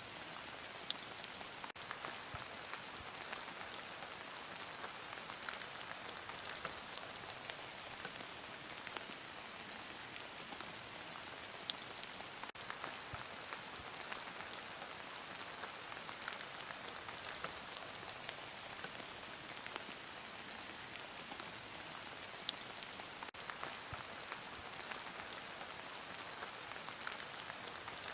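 Heavy rain falling steadily, a continuous hiss with many small drop ticks scattered through it.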